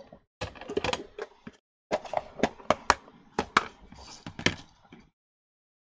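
Irregular sharp taps and clicks of hard plastic crafting tools handled on a desk: a clear acrylic stamp block, then a plastic embossing-powder tray. The sounds cut off abruptly about five seconds in.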